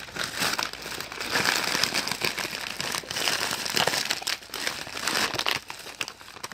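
Packaging crinkling and rustling as a package of squishy toys is opened by hand, in a dense run of crackles that dies away near the end.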